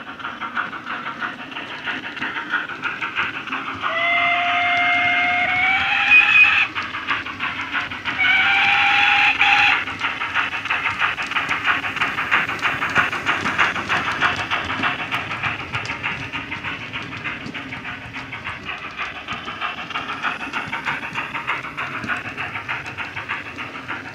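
Sound decoder in a Bachmann GWR 64XX pannier tank model playing steam locomotive exhaust chuffs through a small flat speaker as the engine runs. It gives two whistle blasts about four and eight seconds in, the first rising in pitch at its end.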